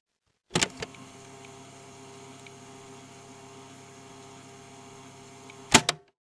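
A steady electrical hum with many evenly stacked tones, switched in by a sharp click about half a second in and cut off by another sharp click near the end.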